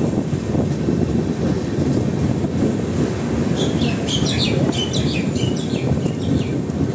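Garib Rath Express LHB coaches rolling slowly into a station, heard from the open doorway: a steady low rumble of wheels on the rails. About halfway through, a run of short high chirps rises above the rumble for a few seconds.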